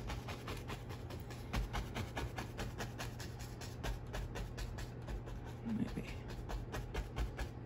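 A paintbrush tapping and dabbing on a stretched canvas, a rapid run of soft taps several times a second as paint is stippled on.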